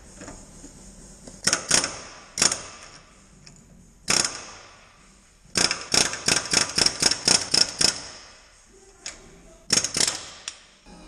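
Pneumatic air chisel fired in short bursts against a suspension arm bush held in a steel vise, hammering the old rubber bush out of the arm. A few separate bursts come first, then a quick run of about ten in a couple of seconds around the middle, and three more near the end.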